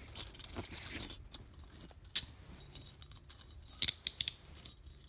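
Steel chain handcuffs being handled: the metal chain and cuffs jangle, with sharp metal clicks, one loud click about two seconds in and a quick run of clicks near the end.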